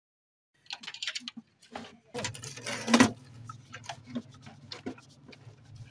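Clicks, taps and rustles of hands working cables and plastic parts inside a photocopier, as the two cables of a replacement corona (charging) assembly are fed into the machine. The loudest knock comes about three seconds in, over a low steady hum that starts about two seconds in.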